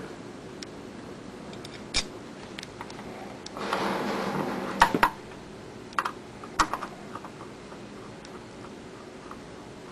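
Light handling clicks and clinks from a thin metal rod being worked at a button wrapping machine: a single click about two seconds in, a brief rustle with sharp clicks around four to five seconds, and two more clicks about a second later, over a steady low machine hum.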